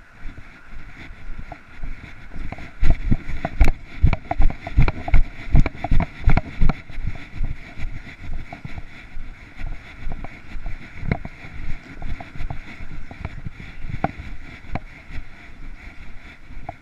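Footsteps of a person walking through dry leaves and long grass, picked up by a body-worn camera: a run of heavy thuds, about two and a half a second, from about three to seven seconds in, then lighter, irregular steps, over a steady noise of wind on the microphone.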